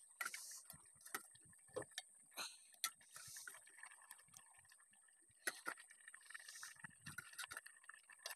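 Scattered light clinks and taps of a metal ladle against a steel cooking pot and a steel plate as curry is served, over a faint steady high-pitched tone.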